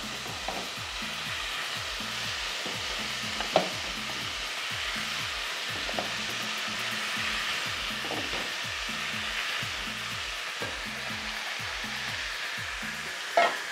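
Seasoned beef pieces searing in hot oil and caramelized sugar in a caldero, a steady sizzle, with a few sharp clicks of a utensil against the pot, the loudest near the end.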